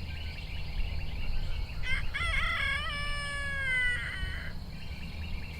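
Rooster crowing once, a drawn-out call that drops in pitch at the end, with faint bird chirps before it.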